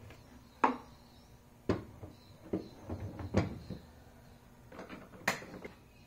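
Hard plastic knocks and clicks as the Makita DVC750LZ cordless vacuum is put back together, its plastic tank and motor head fitted and latched. About five short, sharp knocks come at irregular intervals.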